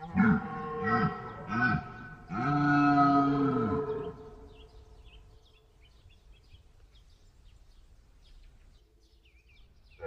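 Calls of a large member of the deer family, moose by the title: three short calls that rise and fall in pitch, then a longer, louder one, ending about four seconds in. Faint high chirps follow.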